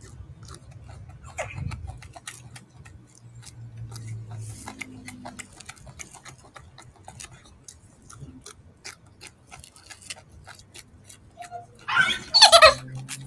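Golden snub-nosed monkey handling and eating a peeled orange, with many soft quick clicks and smacks. About twelve seconds in comes one loud squeaky call that falls in pitch.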